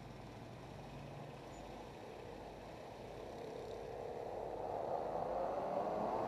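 A pack of 125cc dirt kart engines approaching. The sound is faint at first, then grows steadily louder and climbs in pitch over the second half as the karts come closer and speed up.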